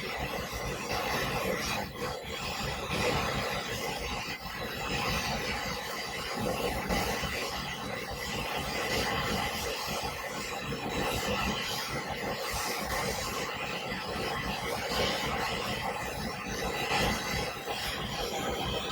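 Ducted air-conditioning compressor unit running steadily: a continuous rough mechanical noise with a faint high whine over it.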